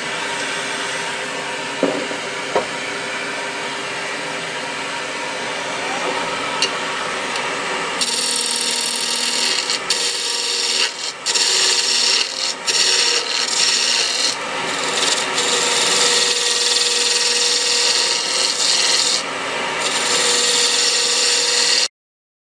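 Wood lathe spinning a segmented wooden ring while a hand-held chisel hollows out its inside, giving a steady scraping cut. About eight seconds in the cutting grows louder and more uneven.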